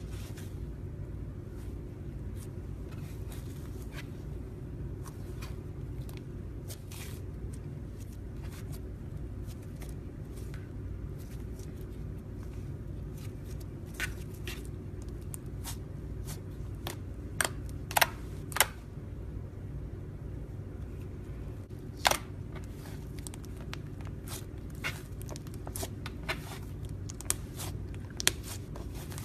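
Scattered sharp clicks and taps of small objects being handled over a steady low hum. The clicks are sparse at first, with a few louder ones a little past halfway and again about three-quarters of the way in.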